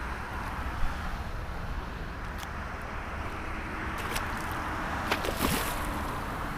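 Water sloshing against a kayak hull with wind rumbling on the microphone, and a few sharp clicks and knocks about four to five seconds in.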